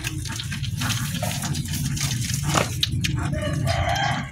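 A porcupine chewing corn: irregular crunching clicks, with voices in the background.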